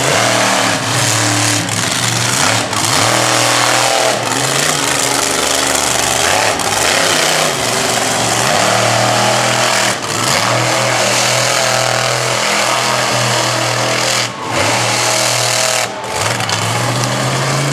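Monster truck's supercharged V8 engine running at high revs with a loud, rough exhaust. The throttle lifts briefly about ten, fourteen and sixteen seconds in.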